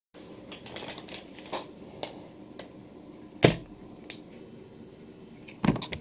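Scattered light clicks and taps, then a single loud thump about three and a half seconds in and a quick double thump near the end: handling knocks close to the microphone as the camera and things around it are moved.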